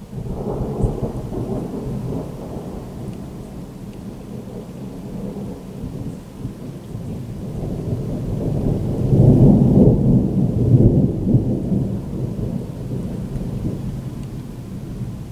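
Rolling thunder: a long low rumble that starts suddenly, swells to its loudest about nine to eleven seconds in, then slowly fades.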